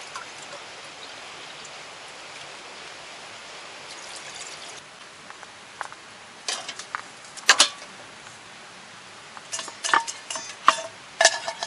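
A steady watery hiss for the first five seconds, then a run of sharp metallic clinks and knocks with short ringing from metal cookware being handled. The loudest clink comes about halfway through, and a quick cluster follows near the end.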